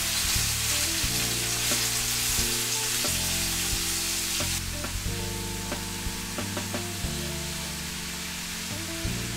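Food sizzling in oil in a frying pan, with a few light clicks as it is stirred; the sizzle softens about halfway through.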